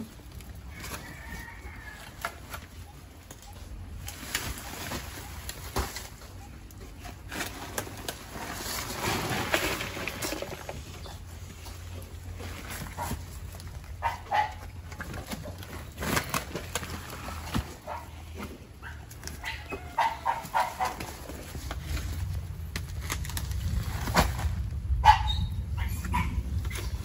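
A dog barking now and then, a few separate barks, over the rustling and scraping of sacks and undergrowth being prodded with a snake hook.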